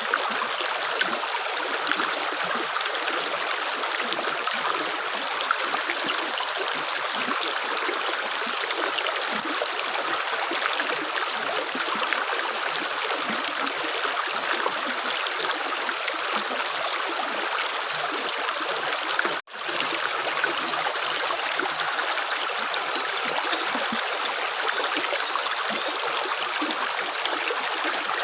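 Steady running water like a small stream trickling, an even rush with fine splashy flicker. The sound drops out for a split second about nineteen seconds in.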